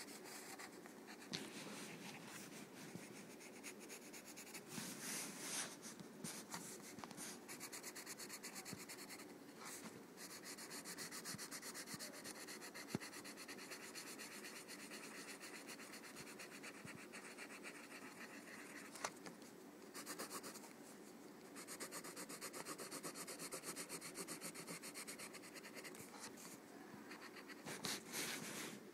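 Pencil rapidly scribbling back and forth on paper to shade an area solid black: a steady, dry scratching of quick strokes, a little louder about five seconds in and again near the end.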